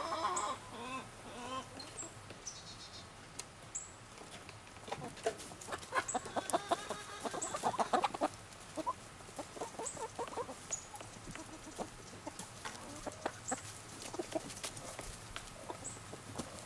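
A flock of laying hens clucking as they gather, with sharp tapping of beaks on a metal feed pan as they peck grain, thickening near the end.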